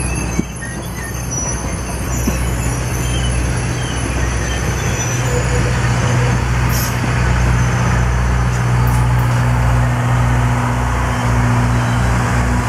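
Passenger cars of an excursion train rolling past at close range: the steady rumble and rattle of steel wheels on the rails with a low steady hum, and a light wheel squeal in the first second or so.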